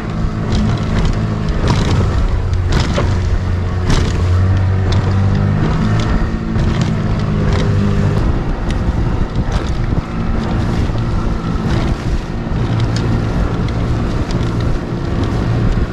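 A small motorboat under way, its engine droning steadily while the hull slaps against the chop again and again, with wind buffeting the microphone.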